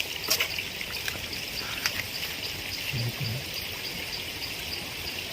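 Mountain stream flowing with a steady rush of water.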